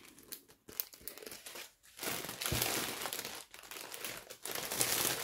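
Plastic zip-lock bags of diamond-painting drills crinkling as they are handled and rummaged through. A few sharp crackles come first, then continuous dense crinkling from about two seconds in.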